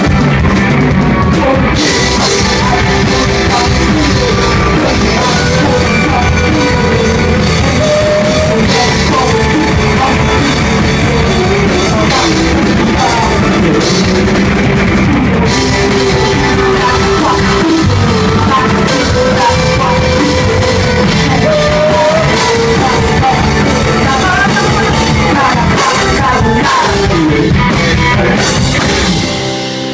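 Live rock band playing loudly, with drum kit, guitars and a singing voice. In the last second the drums and the full band cut out, leaving a held chord ringing as it starts to fade: the end of the song.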